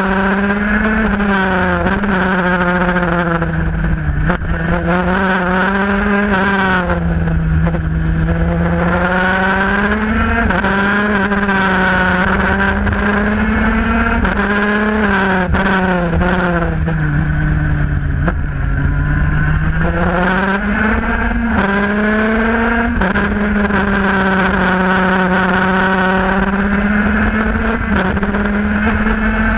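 IAME Parilla 125cc two-stroke KZ shifter kart engine at racing speed, its pitch climbing through the gears with sharp drops at each shift or lift-off, then pulling up again out of the corners. The revs fall and recover about a dozen times, with one longer, slower dip just past the middle.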